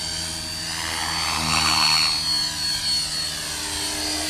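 T-Rex radio-controlled helicopter in fast flight: a continuous high-pitched whine from its motor and rotor. It grows louder and its pitch bends up and down around the middle as the helicopter swoops past, then it settles back.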